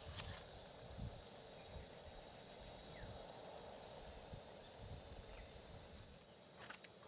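Insects, crickets or similar, chirring in a steady high-pitched chorus that fades out about six seconds in, with a few faint low knocks underneath.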